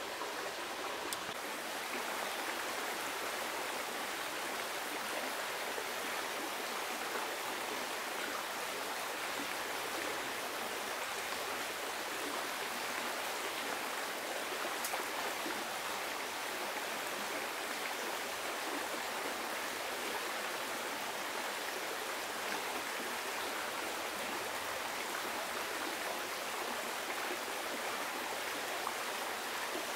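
Steady rushing of a running stream: continuous water noise with no breaks.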